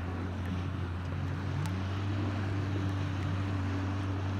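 Motorboat engine running steadily: a low drone whose pitch wavers up and down a little.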